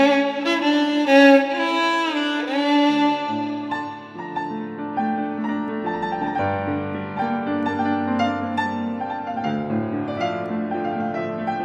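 Slow Persian classical piece in the mode Bayat-e Esfahan for violin and piano: the violin plays a sliding melodic phrase over piano, and about three seconds in the slides end and the piano's struck notes come forward.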